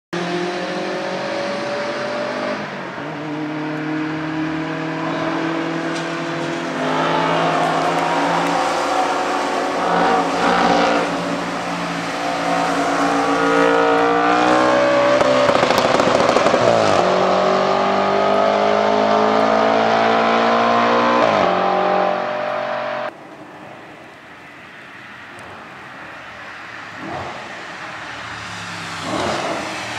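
Audi RS5's 4.2-litre V8 through a full Capristo exhaust, revving up through several gears under hard acceleration, then passing close by with its pitch dropping as it goes past. About two-thirds of the way through the sound cuts off abruptly to a much quieter, distant engine note.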